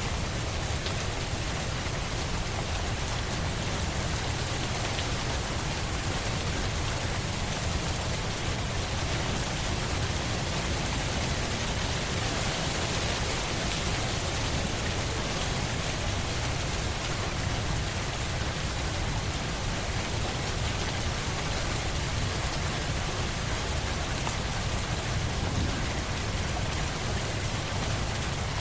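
Steady rain falling, a continuous even patter with a deep low rumble underneath.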